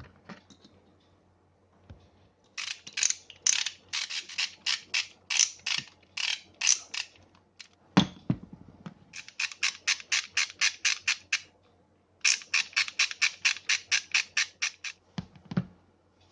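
Half-inch drive ratchet wrench clicking as its pawl skips over the gear teeth, in three quick runs of rapid, even clicks. A single knock comes between the first and second runs.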